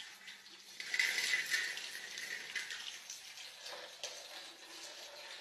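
Water splashing and running steadily, a little louder from about a second in.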